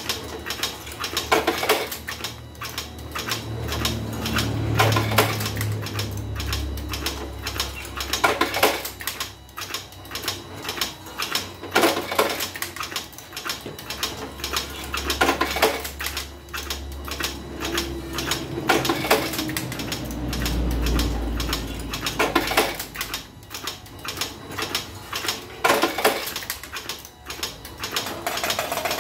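Homemade automatic cigarette-making machine with a revolver-style cylinder running, a rapid metallic clatter of its mechanism with a heavier clack about every three and a half seconds over a low hum. It is running smoothly without jamming while making filter cigarettes from moist clove tobacco.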